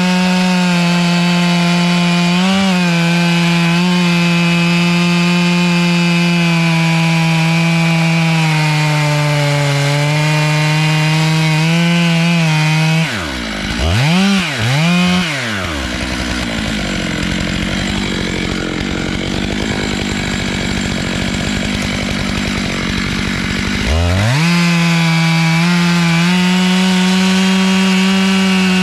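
Stihl MS 661 two-stroke chainsaw at full throttle, cutting a cross-cut cookie from a log on a small chainsaw mill. About halfway through, the throttle drops, is blipped twice, and the saw idles for several seconds before revving back up to full throttle and cutting again.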